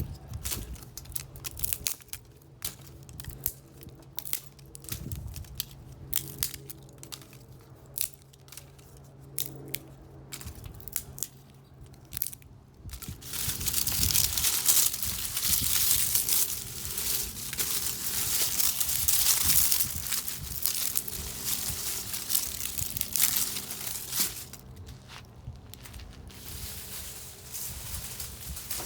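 Tree branches breaking: a long series of sharp wooden cracks and snaps, then about ten seconds of dense, louder crunching and crackling, with a few more snaps near the end. A faint steady low hum runs underneath.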